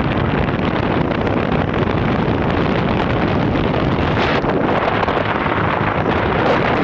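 Steady wind rushing over the microphone, with a moving vehicle's running noise underneath.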